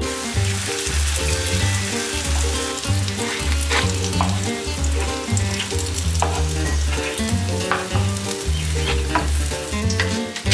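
Potato cheese pancakes sizzling in hot oil in a frying pan, with scattered light clicks from a wooden spatula, over background music with a regular bass line.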